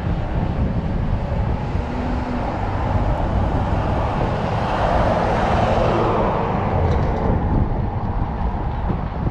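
Wind rumbling on the microphone of a camera riding on a bicycle, with a road vehicle passing: its noise swells to its loudest about five seconds in and fades by about seven.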